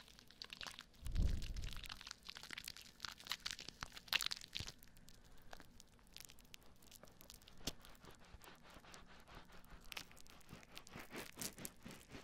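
Soap foam being rubbed and squeezed over the ears of a binaural microphone, heard very close as a dense, crisp crackle of popping bubbles. About a second in comes a deeper, muffled rumble, the loudest moment, as a hand presses on the microphone.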